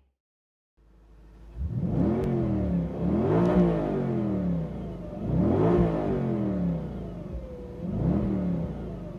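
Audi S4 B6's stock 4.2-litre V8 revved four times from idle, each rev rising and falling back to a steady idle. It begins after a brief silence.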